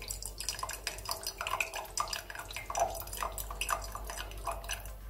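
Red wine vinegar poured from a plastic bottle into a glass jar of oil, splashing and glugging in a quick run of small bubbly blips, about three a second.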